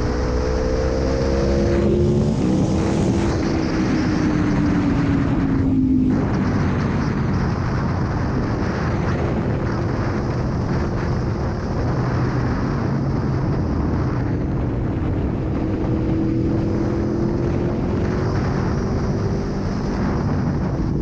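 Aprilia Tuono V4 1100's V4 engine running under way, its pitch rising and falling with throttle, dropping off a few seconds in and climbing again later, over heavy wind noise on the microphone.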